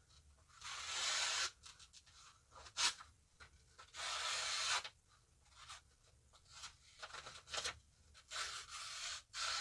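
Knife blade slicing through a sheet of paper in three long hissing strokes, with small ticks of paper handling between them. The D2 steel blade is on its factory edge, never resharpened, and cuts the paper cleanly.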